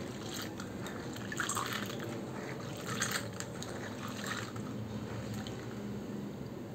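Soaked, peeled field beans (mochai) scooped by hand in a steel bowl of water and let fall back: soft wet splashes and light clicks of beans dropping into the water, a little louder twice in the first half.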